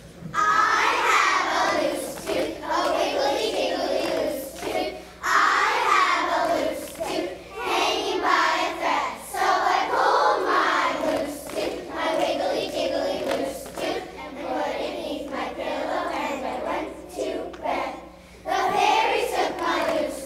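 A group of young children singing together in unison, in phrases with brief pauses about five seconds in and again near the end.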